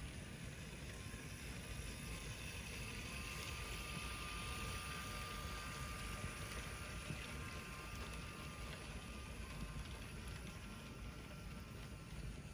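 Motorised LEGO model train of a DRG T18 steam locomotive running past on plastic LEGO track: a faint motor whine and wheel rumble that swell a couple of seconds in and fade after about eight seconds, over a low steady wind rumble.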